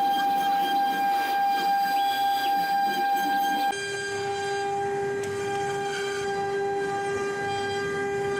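CNC wood router's spindle motor running with a steady high-pitched whine over the noise of cutting; nearly four seconds in the sound switches abruptly to a lower, steadier whine.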